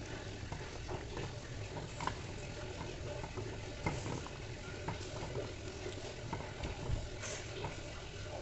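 Kitchen work with utensils: scattered small clicks and knocks over a steady low hiss.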